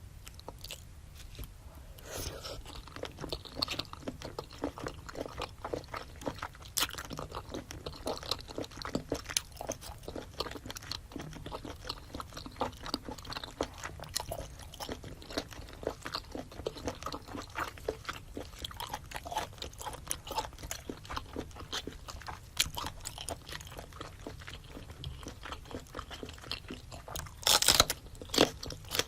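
Close-miked eating: chewing and biting into seafood boil with rice cake, a dense run of quick wet clicks starting about two seconds in, with a louder bite near the end.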